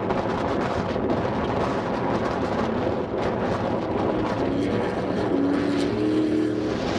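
Off-road desert race buggy's engine running hard as it slides through a dirt turn, its note climbing in steps over the last two seconds as it accelerates away.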